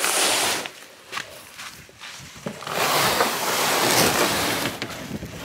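A Canadian canoe's hull scraping over a gravelly beach as it is pushed off into the water: a short gritty scrape at the start, then a longer one of about two seconds in the middle.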